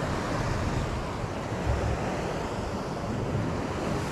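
Sea surf washing steadily on the shore, with wind buffeting the microphone in low gusts.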